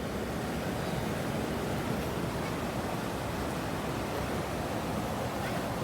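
Steady rushing of river water running over the falls, an even noise with no change in level.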